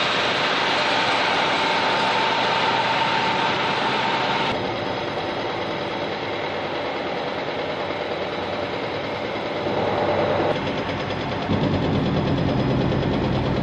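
Backhoe's diesel engine running at work. Its sound changes about four seconds in, rises again around ten seconds, and takes on a deeper, heavier note near the end.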